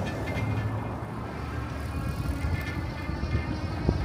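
Riding noise from an e-bike on the road: a steady low rumble of wind and road noise on the front-mounted camera's microphone, with a faint steady high whine and a single knock near the end.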